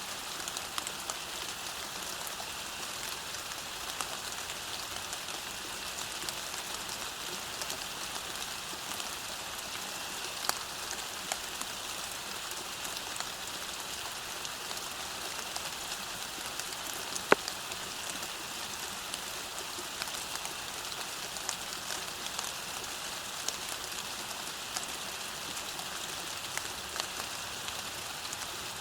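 Steady rain falling, an even hiss dotted with scattered individual drop ticks, one sharper tick a little past halfway.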